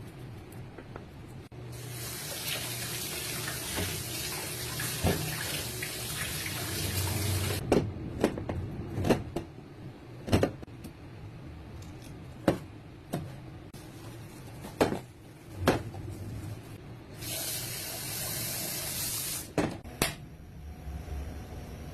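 Kitchen tap running into a sink for about six seconds, then a string of sharp knocks one to two seconds apart. The tap runs again for about two seconds near the end.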